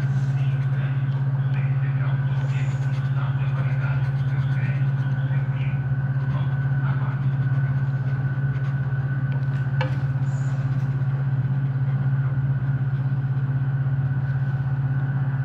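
A loud, steady low hum with a fainter steady high whine above it, unchanging throughout, and a single sharp click a little past the middle.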